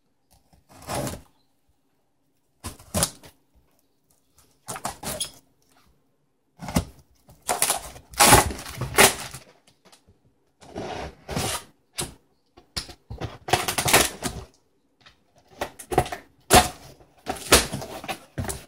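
Gerber pocket knife slicing the packing tape on a cardboard shipping box, with the box being handled: a string of short scraping, ripping and rustling bursts with brief pauses between them.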